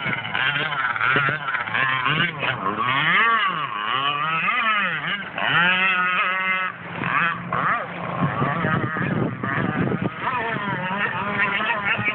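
Gas RC speedboat's two-stroke engine with a tuned pipe, running hard with a loud buzzy note. Its pitch sweeps up and down again and again as it is throttled on and off.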